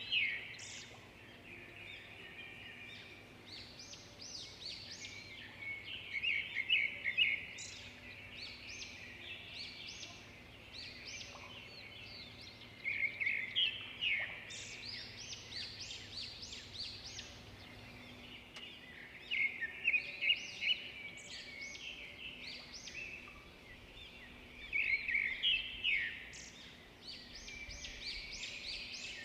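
Several songbirds singing in a dawn-chorus-like mix: rapid high chirps and trills, with a louder song phrase repeating about every six seconds over a steady background of softer calls.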